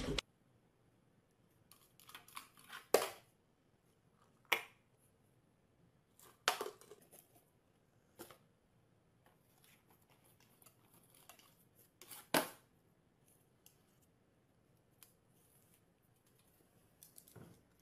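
Faint, scattered short clicks and rustles of small cardboard boxes being handled and nosed at by dogs, the sharpest about three seconds in and again near twelve seconds.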